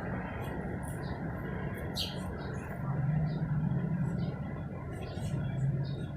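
Outdoor ambience of birds giving short, high chirps and squeaks over a steady low hum that swells a couple of times.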